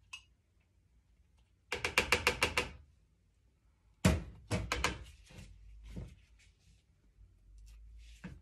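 A small metal mesh strainer being tapped and knocked against the rim of a plastic pitcher: a quick rattle of about ten taps about two seconds in, then a sharp knock and a handful of separate knocks, and one more knock near the end.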